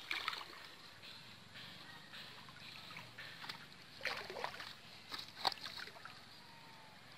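Shallow water sloshing and splashing as a wet mosquito net is handled and its catch tipped into a bucket. Three short louder splashes stand out, one at the start and two in the second half.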